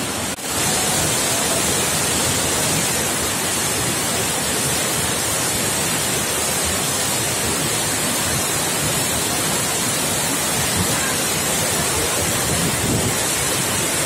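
Steady rush of a waterfall pouring onto rocks and the stream below, heard close by, with a brief dropout about half a second in.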